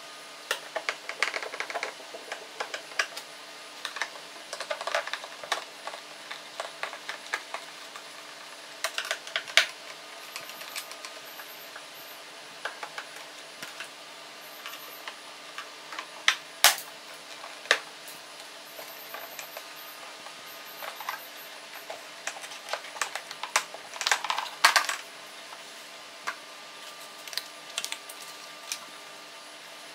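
Scattered clicks, taps and plastic knocks from a screwdriver working on the hard plastic housing of a Proton Inspira's air-conditioning evaporator unit as its clips are freed and its halves separated. There is one sharp knock about halfway and a quick flurry of clatter near the end.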